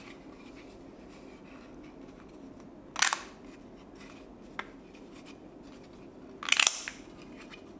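3D-printed PLA plastic clips snapping onto flask pattern pieces: sharp plastic clicks about three seconds in, a small tick shortly after, and a cluster of clicks near the end, over a faint steady hum.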